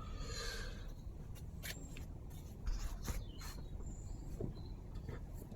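Light handling noise of a 3D-printed plastic model house: a few sharp clicks and taps and faint scraping as the printed parts are set against each other.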